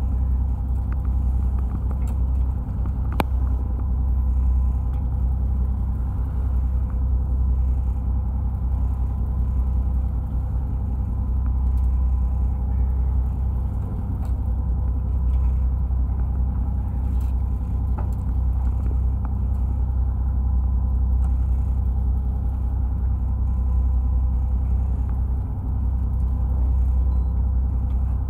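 Fishing boat's engine running steadily as a low rumble, with a faint steady hum over it and a couple of light clicks.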